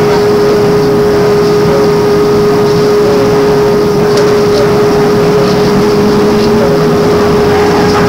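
Interior noise aboard a MAN articulated trolleybus under way, heard on an old cassette tape recording: a steady, loud rumble with a constant hum, and a faint tone rising slightly about two-thirds of the way through.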